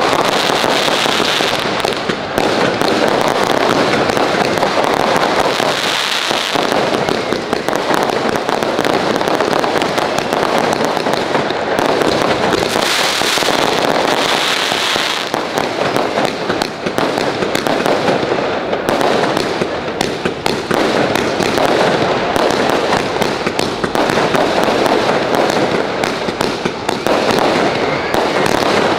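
Fireworks display with many shells bursting in quick succession: a dense, near-continuous run of bangs that keeps up without a break.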